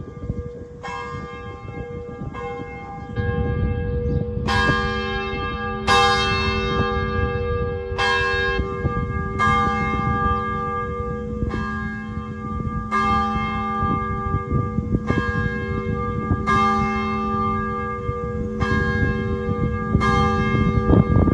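A single church bell tolling, struck about every one and a half to two seconds, each stroke ringing on into the next. A low rumble runs underneath from a few seconds in.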